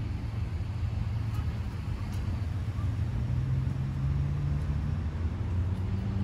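Motor vehicle rumble: a steady low engine and road drone, with a hum that slowly rises in pitch around the middle as the vehicle speeds up.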